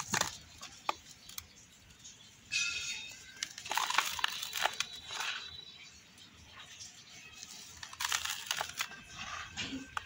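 Dry molded yellow soil cups crumbling and crunching in the hands, with loose powder raked and rubbed through the fingers. The gritty rustling comes in irregular bursts: one at the start, a long one from about two and a half to five seconds in, and another near eight seconds.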